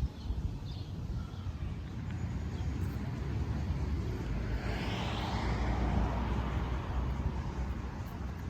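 A vehicle passing by: a broad whoosh that swells about four seconds in and falls in pitch as it fades, over a steady low rumble.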